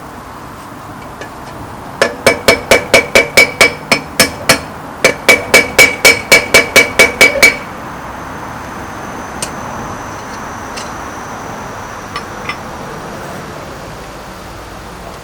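Hand hammer blows on steel over an anvil, two quick runs of about a dozen strikes each at roughly five blows a second, each strike ringing with a clear anvil tone. The smith is forging down an old ring spanner.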